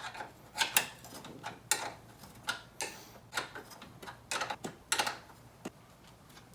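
Irregular sharp clicks and clinks of a wrench working the nut on a car battery's hold-down bracket as it is tightened down.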